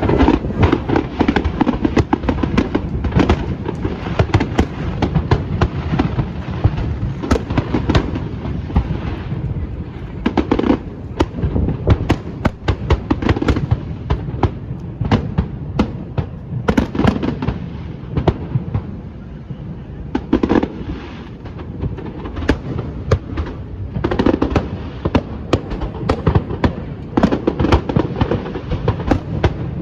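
Fireworks display: a dense, unbroken run of bangs and crackling, with heavier volleys every few seconds.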